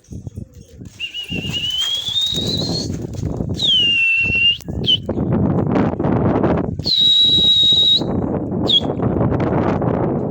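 Pigeons' wings flapping as a small flock takes off and flies, a dense fluttering that runs on after about a second in. Three sharp whistled notes sound over it: one rising, one falling and one held steady.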